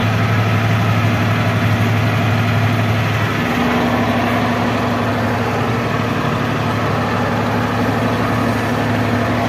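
Tractor engine running steadily, heard from inside the cab; its low hum wavers briefly about three seconds in.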